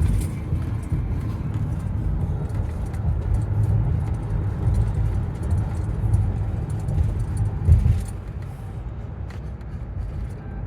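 Low, steady rumble of a motor vehicle, with a knock at the start and a louder thump about eight seconds in, after which it grows quieter.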